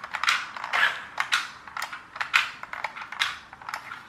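New Bright toy radio-controlled car driven in short stop-start bursts from a tank-style handheld controller: an irregular run of quick clicks and brief gear whirrs, two or three a second.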